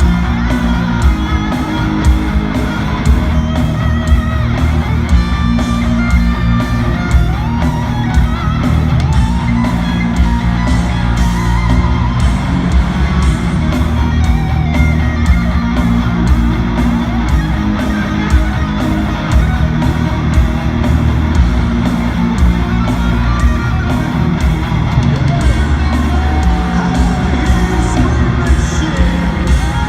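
Loud heavy rock music with distorted guitars and a steady, driving drum beat, and voices singing or yelling along.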